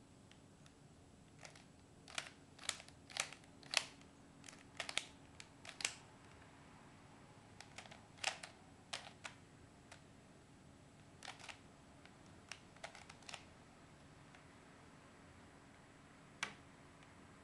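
Plastic dino cube twisty puzzle being turned by hand: sharp clicks as its pieces snap through each turn, in quick clusters of several with pauses between, and one last single click near the end.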